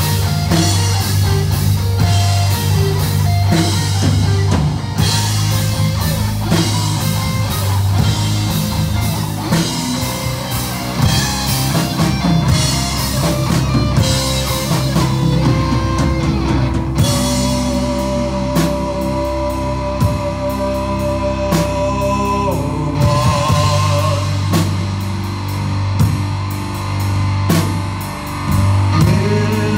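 Doom metal band playing live: distorted electric guitars, bass guitar and drum kit. A little past halfway the cymbals drop out and long guitar notes are held for several seconds, then the full band comes back in.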